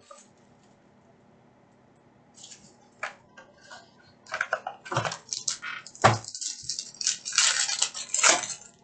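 Topps Five Star card box being opened by hand, its cardboard parts knocking and scraping, then the pack's foil wrapper crinkling and tearing in a dense crackle near the end. The first two seconds are quiet.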